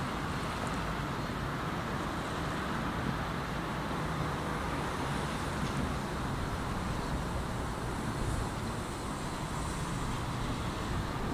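A steady low engine drone with wind noise on the microphone, unchanging in level.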